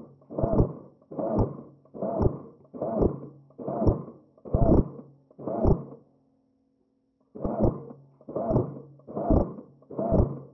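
Regular muffled thumps, a little over one a second, from the camera wearer walking through woodland, each footfall jolting the body-worn camera. They stop for about a second six seconds in, then resume.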